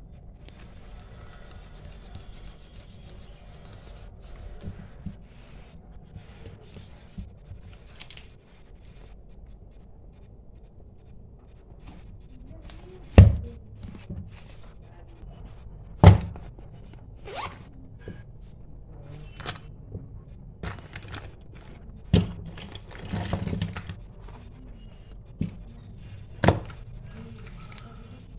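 A paper scrapbook and stationery being handled on a table: soft paper rustling, then a string of sharp knocks and thuds as things are put down. The two loudest thuds come about 13 and 16 seconds in.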